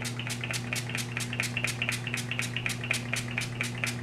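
Rose water facial mist spray bottle pumped again and again, a quick even run of short spritzes at about five or six a second.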